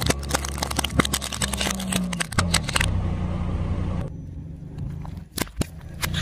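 A car tyre crushing plastic toothpick containers full of wooden toothpicks: a dense run of sharp cracks and snaps as the plastic shatters and the toothpicks splinter, over the car engine's low running. The cracking stops about three seconds in, giving way to a brief hiss and then a few scattered clicks.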